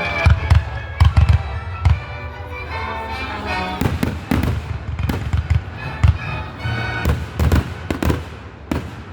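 Fireworks bursting overhead in a rapid series of loud bangs and booms, about a dozen in clusters, with music playing underneath.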